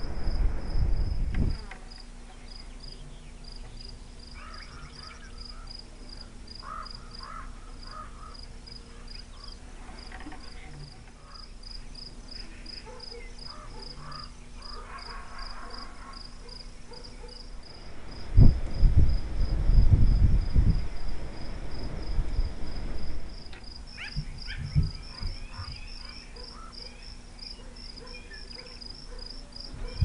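Crickets chirping steadily, an even run of high chirps a few times a second. Low rustling and bumping comes and goes over it, loudest just past the middle.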